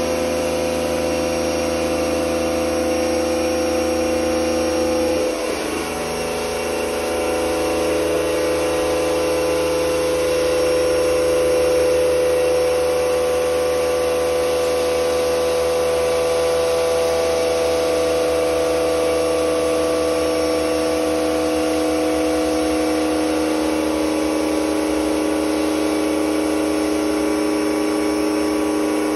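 Pump running steadily while pressurising water to hydroform a handpan shell, bulging the steel. It is a continuous hum with several steady tones that shift in pitch about five seconds in, then hold.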